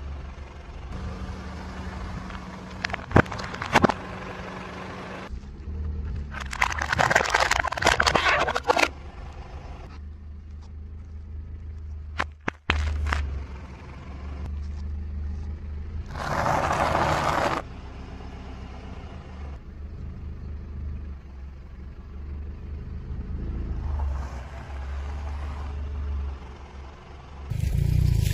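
A car tyre rolls slowly over small objects on asphalt, with the engine's low hum underneath. It makes a series of crunching, cracking bursts as plastic sauce cups and chocolate bars are squashed. Near the end, water balloons burst with a loud splash.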